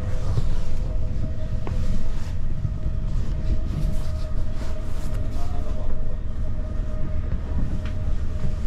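Electric commuter train running at speed, heard from inside the passenger car: a steady low rumble with a faint steady whine over it and a few light clicks.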